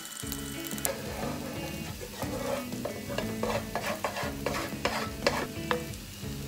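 Wooden spatula stirring and scraping chopped onion around a nonstick frying pan while the onion sizzles as it fries toward browning. The quick, irregular scraping strokes start about a second in and stop near the end, over background music.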